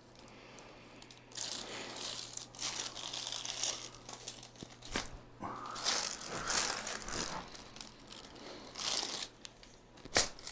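Rustling and crinkling as a patient is moved and positioned on a chiropractic treatment table, with a sharp click about five seconds in and another near the end.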